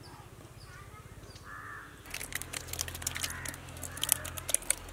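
Rapid light clicks and scrapes, from about two seconds in, of thick curd being poured and scraped out of a steel bowl onto the brinjal in a large metal pot. A crow caws about a second and a half in.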